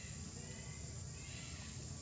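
Outdoor ambience: a steady high-pitched drone of insects over a low rumble, with a few faint chirps.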